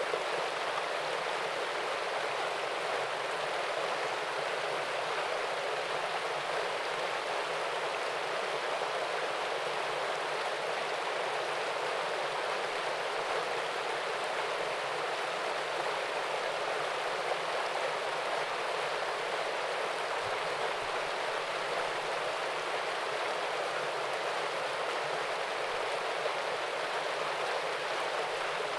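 Small waterfall and stream: water running and splashing over rocks in a steady, even rush.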